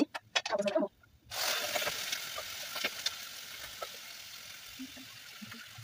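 Food tipped into hot oil in a pot, sizzling sharply at once about a second in, then settling to a steadier, fainter sizzle, with a few light clicks of a spoon against the pot.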